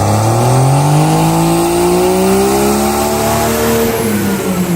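Truck engine at full throttle on a power (dyno) run, its pitch climbing steadily for about three and a half seconds, then falling back as the pull ends.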